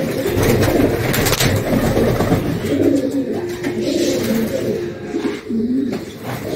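Several domestic pigeons cooing, low rolling coos overlapping one another, with a short lull near the end.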